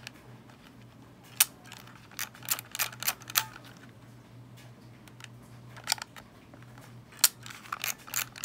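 Sharp, irregular plastic clicks from a Kodak M38 toy film camera being handled, its flash switch flicked on and off. The owner is testing a flash that he suspects is broken.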